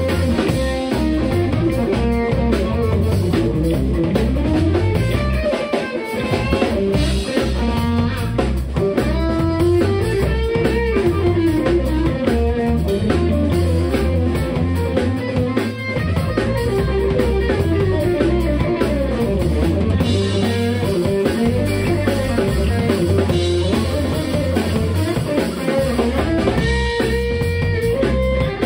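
Live instrumental electric-guitar band: a lead electric guitar plays a moving melody over electric bass and a drum kit.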